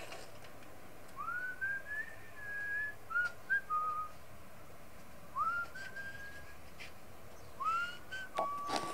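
A person whistling a slow tune in three phrases, each sliding up into a held note, with a few faint clicks between.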